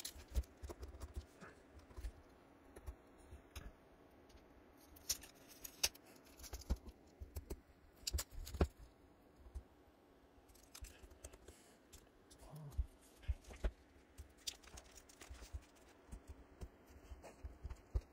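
Fingers and fingernails picking at thin packing tape on plastic-wrapped comic bags: quiet, irregular crinkles, scratches and sharp plastic clicks.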